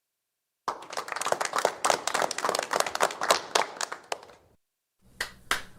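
A small group of people applauding, starting about a second in with quick irregular hand claps that thin out and stop after about four seconds; near the end a few separate claps start a new round of applause.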